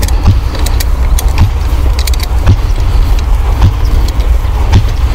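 Spark plug wrench clicking and clinking against the plug as a spark plug is unscrewed, over a loud low rumble that swells about once a second.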